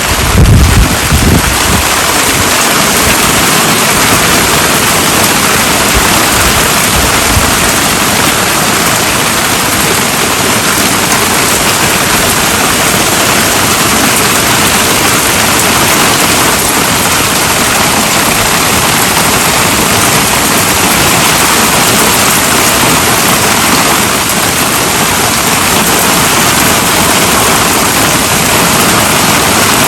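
Intense heavy rain: a loud, dense, steady hiss of a downpour. It starts abruptly at full strength, with a few low rumbling thumps in the first couple of seconds.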